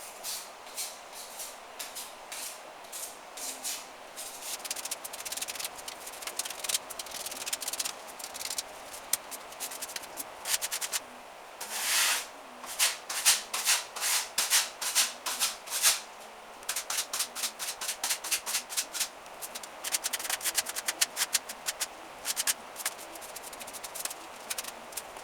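Quick, repeated scraping strokes of a hand tool across a patched plaster wall, in bursts with short pauses, busiest and loudest in the middle.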